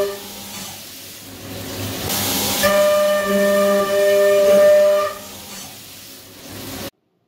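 End mill spinning at 12,000 rpm in a Brother CNC mill, making heavy side cuts in an aluminum block under flood coolant. A steady, multi-toned cutting whine stops right at the start, comes back about two and a half seconds in after a burst of hiss, and stops again about five seconds in. The cut runs steady with no chatter.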